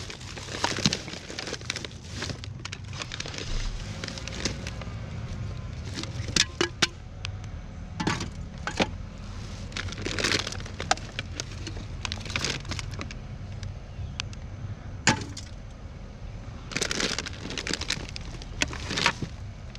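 Hands rummaging through a plastic garbage bag full of trash: plastic crinkling and rustling with irregular sharp clicks and clinks as packaging and cans are shifted about.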